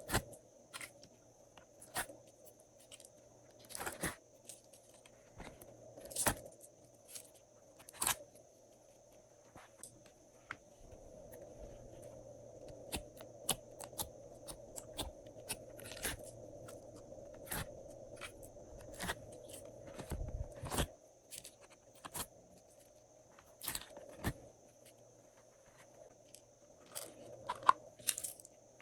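Glossy slime being squished and worked by hand, with add-ins mixed through it: irregular sharp sticky clicks and crunchy pops, some in quick clusters, over a faint steady background hum.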